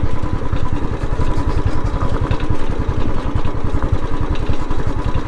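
Royal Enfield Classic 350's single-cylinder engine running with a steady low firing beat while the motorcycle is ridden over a loose, rocky track.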